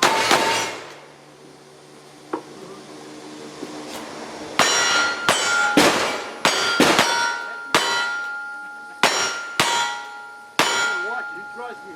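Rapid gunshots in a cowboy action shooting stage, each followed by the clang and ringing of a hit steel target. There are about ten shots, most about half a second to a second apart, after a pause of a few seconds early on.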